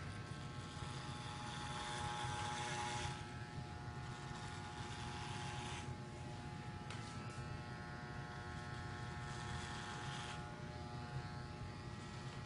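Corded electric hair clippers running with a steady buzz, shaving a scalp close. The sound grows louder and rougher twice, about two to three seconds in and again from about seven to ten seconds in.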